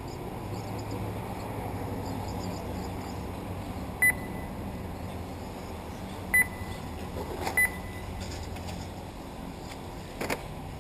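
Three short, high beeps from the race's transponder lap-timing system, spaced a few seconds apart, each marking an RC car crossing the timing line, over a steady hum from the track. A brief knock sounds near the end.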